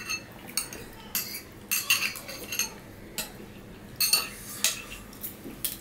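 Metal spoons clinking and scraping against ceramic plates and bowls while eating: an irregular run of short clinks, each with a brief high ring.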